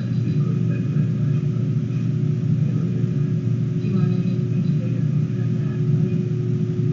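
A steady low mechanical rumble with a constant hum tone, unchanging throughout.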